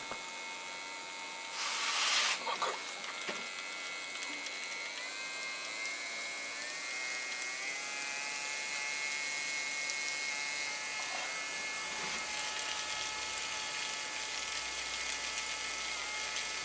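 Audi A6 C6 windshield washer pump's small electric motor running steadily on a bench supply at about 4 volts, pumping water, with a high thin whine that shifts slightly in pitch partway through. A short hiss comes about two seconds in.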